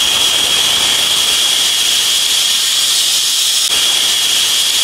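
Stovetop pressure cooker whistling: steam blows out under the weighted valve as a loud, steady hiss with a shrill whistle tone held on one pitch. The whistle is the sign that the cooker has reached full pressure; two such whistles mark the rice as done.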